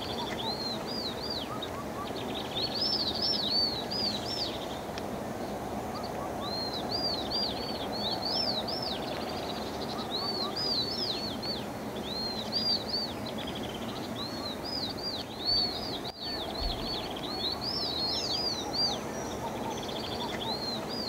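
Many small birds chirping: quick arched chirps in repeated runs, over a steady background hiss.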